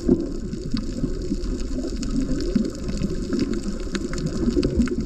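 Water heard underwater through an action camera's housing: a low, dense bubbling and sloshing with scattered small clicks.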